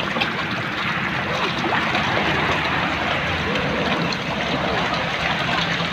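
Water splashing and churning steadily as a dense crowd of fish thrash at the surface of a pond.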